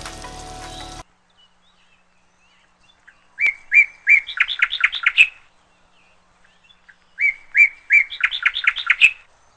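A songbird sings the same phrase twice, each about two seconds long: a few clear, even notes, then a quicker run of notes. Background music cuts off about a second in, before the first phrase.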